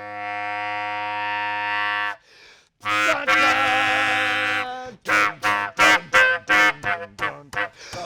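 A large horn blown loudly: one long held note, a short break, a second held note, then a quick run of short blasts, about two a second.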